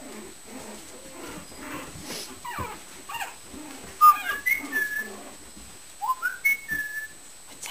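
Mini Shichon puppies letting out short, high whining squeals and yips while play-wrestling. The squeals are loudest in a flurry about four seconds in, with another flurry about two seconds later.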